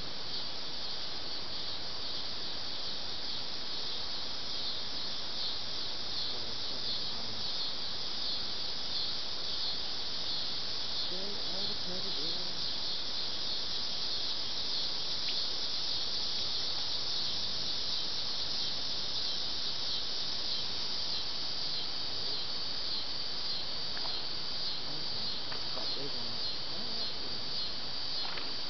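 Steady, high-pitched insect chorus, a dense shrill trill that holds without a break.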